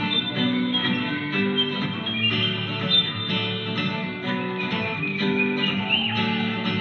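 Music: a plucked and strummed guitar accompaniment with a high melody line above it. About five seconds in, one long held high note bends upward and then breaks off.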